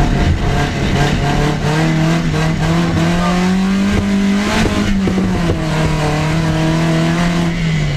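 Rally car engine heard from inside the cabin, pulling hard at high revs with the pitch climbing slowly, a brief dip about four and a half seconds in, then held steady; near the end the revs fall away as the driver lifts off.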